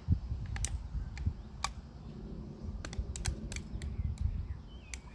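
Irregular sharp clicks and ticks, about a dozen spread unevenly, over a steady low rumble.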